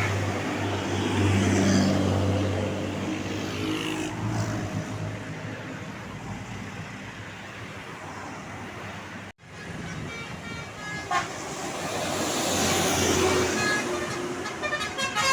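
A bus passes with a loud low engine hum that fades away. After a break, another bus comes near, and close to the end a multi-tone telolet horn starts playing a stepped tune.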